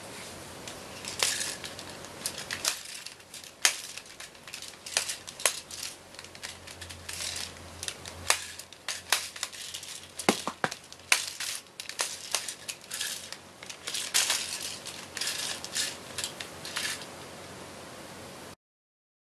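Plastic toy Storm Halberd being swung and spun by hand: a rapid, irregular string of sharp plastic clicks and rattles mixed with short hissing swishes over a steady background hiss. It cuts off abruptly shortly before the end.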